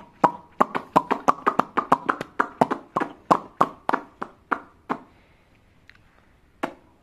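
A toddler's mouth smacking wetly while eating a piece of apple: a fast, even run of sharp smacks, about five a second, for some five seconds. After a pause there is one more smack near the end.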